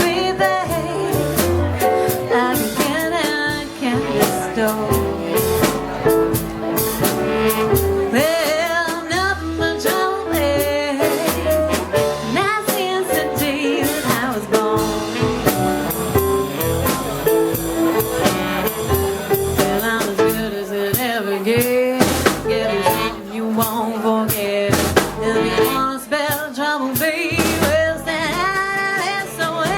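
A band playing an up-tempo song: a drum kit with snare and bass drum keeping the beat under a walking bass and wavering melody lines.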